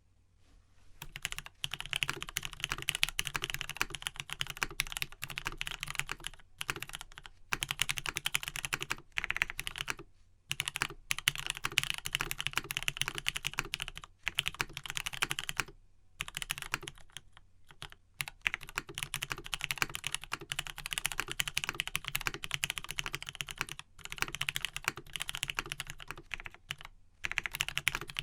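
Continuous fast typing on a custom mechanical keyboard with lubed Gateron Pink linear switches on a full aluminium plate and OG Cherry doubleshot keycaps: rapid keystroke clacks in runs, with brief pauses every few seconds.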